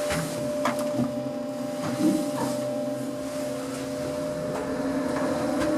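Otis Gen 2 lift's steady machine hum with two steady mid-pitched tones, broken by a few light clicks and knocks about a second apart near the start.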